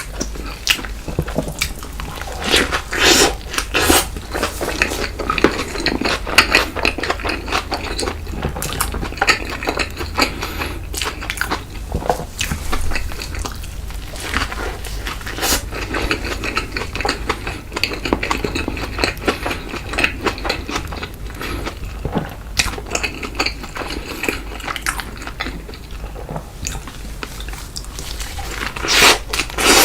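A person eating close to the microphone: crisp bites and chewing with many small crackles and clicks, louder crunches a few seconds in and near the end, over a steady low hum.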